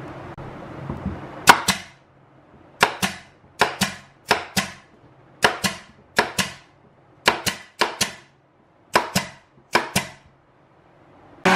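Pneumatic nail gun firing about a dozen sharp shots, most in quick pairs, driving nails into plywood edge strips on a speaker cabinet. A power sander starts up right at the end.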